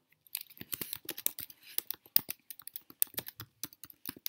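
Typing on a computer keyboard: a quick, uneven run of key clicks that starts about a third of a second in.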